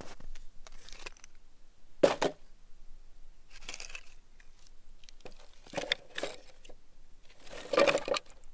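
Split firewood being handled and set into a small portable metal grill: a series of irregular knocks and scrapes of wood against the grill pan, the loudest about two seconds in and another near the end.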